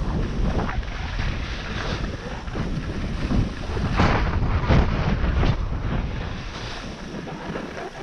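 Wind buffeting a GoPro's microphone while skiing downhill at about 20 km/h, a steady low rushing rumble. Skis hiss over the snow through the turns, with a few louder swishes about halfway through.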